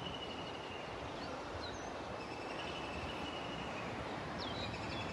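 Faint outdoor ambience: a steady hiss of background noise with a few faint, short bird chirps and a faint steady high tone.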